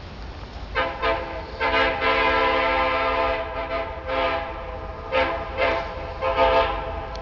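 Ferromex diesel locomotive's air horn sounding a chord in a series of blasts: two quick toots, a long blast of nearly two seconds, then four shorter blasts.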